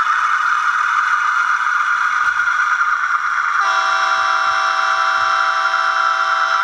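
The DCC sound decoder of an N-gauge ÖBB 5145 diesel railcar model, playing the diesel engine's steady running sound through the model's small speaker. About halfway through, a long horn blast starts and is held.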